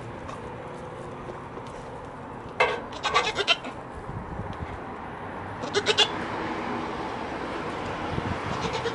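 Goat kids bleating: a few short, wavering bleats about two and a half to three and a half seconds in and again about six seconds in, with a fainter one near the end.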